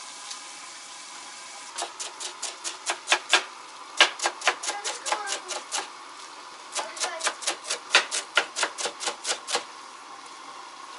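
Knife chopping a bunch of herbs on a cutting board: quick, sharp strikes about five a second, in three runs with short pauses between them.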